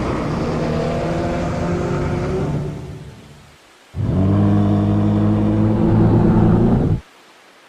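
Two long, low, growling kaiju vocal sound effects standing in for dialogue. The first fades away, and the second, louder one starts after a short gap and cuts off suddenly.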